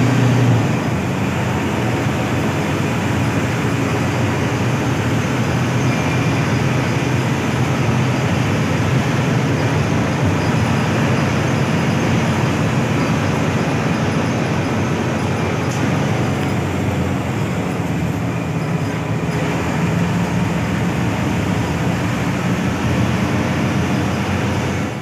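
Hino AK8 front-engined bus on the move: steady engine and road noise with a low hum, unchanging throughout.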